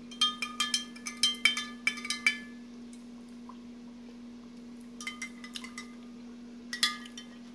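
Metal spoon clinking against the side of a glass Pyrex measuring cup while stirring salt into water to dissolve it. A quick run of ringing clinks lasts about two seconds, then a few more come around five seconds and again near the end.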